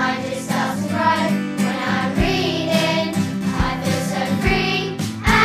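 Intro music: a song with singing voices over a bass line and a few low drum hits.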